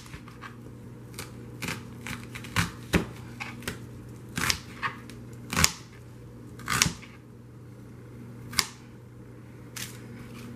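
A kitchen knife chops a white onion into chunks on a plastic cutting board: irregular sharp knocks as the blade strikes the board, with a short pause past the middle.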